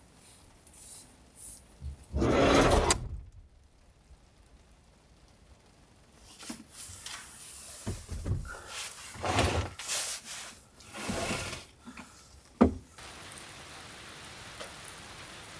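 Rustling, rubbing and knocking as a person climbs about inside a camper van and handles a portable power station by its handle, with one sharp click near the end. A steady hiss of rain follows.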